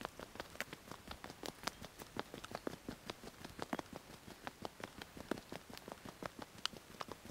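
Footsteps on a forest dirt path, a quick irregular patter of small crunches and clicks underfoot.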